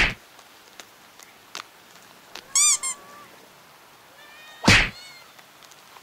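Kittens mewing: a high-pitched mew about halfway in, followed at once by a shorter one, with fainter mews near the end. A loud short thump sounds near the end.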